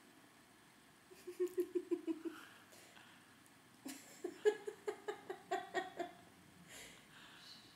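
A woman giggling in two short bouts of quick, rhythmic laughter, about a second in and again about four seconds in.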